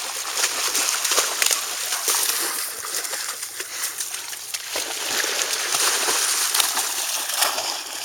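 Continuous splashing and sloshing of water: a steady patter of many small splashes and crackles.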